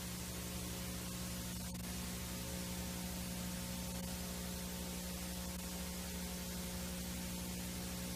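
VHS tape playback noise: a steady hiss of static with a low electrical hum under it.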